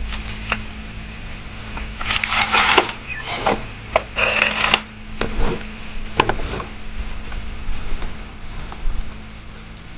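Hand work at a car's fuel filter line fittings: a few short rustling scrapes and scattered sharp clicks, over a low steady hum.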